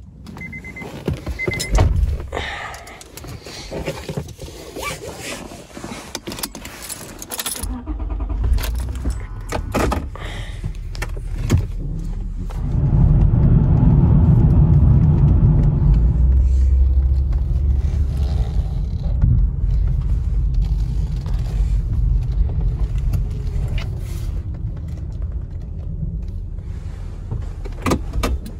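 Honda Pilot driving, heard from inside the cabin: a low steady road and engine rumble sets in about eight seconds in, is loudest for a few seconds partway through, then carries on, with keys jangling. Before it, scattered clicks and knocks.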